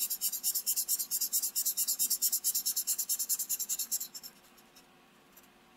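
Sharpie fine-point marker scribbling rapidly back and forth on paper, shading in a drawn circle: a fast, even scratching that stops about four seconds in.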